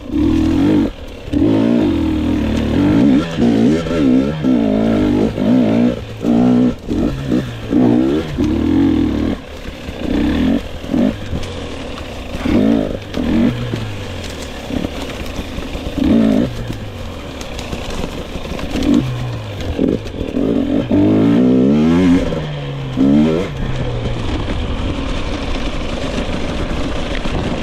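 2022 GasGas EX 250 fuel-injected two-stroke dirt bike engine revving up and down again and again as it is ridden hard, its pitch rising and falling with each twist of the throttle. It settles to a steadier run near the end.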